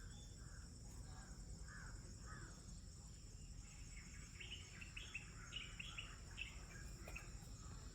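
Faint woodland ambience: a steady high insect drone with a series of short bird chirps, the chirps higher-pitched and quicker in the second half.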